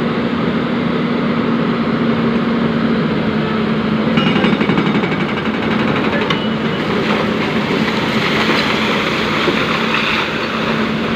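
Hyundai excavator's diesel engine running steadily under load during demolition work, with a rapid rattle about four seconds in.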